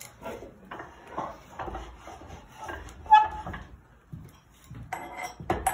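Steel pipe jig being fitted into a lathe's tool-rest holder: metal-on-metal handling clatter and clinks, with one sharp ringing metal clank about three seconds in and more rattling near the end.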